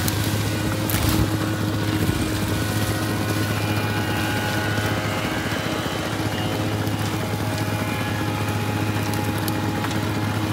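Irrigation water-pump engine running steadily, a constant low drone. A brief dry crack about a second in.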